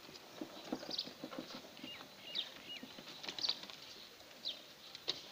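Milk squirting in short, irregular spurts into a small metal pot as a cow is hand-milked.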